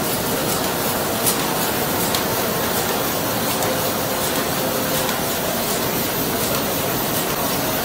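BDF 1450 litho laminator running: a steady mechanical whir and hiss with faint light ticks scattered through it.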